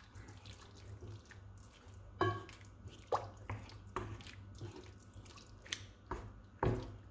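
Wooden spoon stirring chunks of chicken and bacon through a shallow pool of liquid in a frying pan: wet sloshing and scraping, with irregular knocks of the spoon against the pan, the loudest about two seconds in and again near the end.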